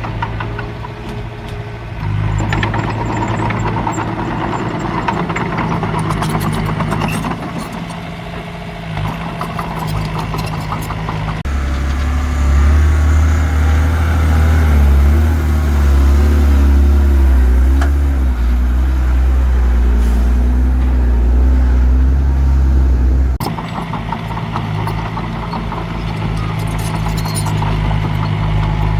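Heavy diesel engines of a crawler bulldozer and dump trucks at work, running steadily. About a third of the way in the sound switches suddenly to a deeper, louder engine drone, which cuts off just as suddenly about two-thirds of the way in.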